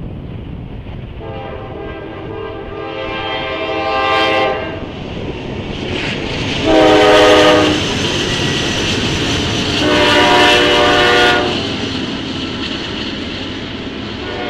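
Diesel freight locomotive sounding its horn in three blasts, long, short, then long, as the train approaches and passes, over the steady rumble of the train on the rails.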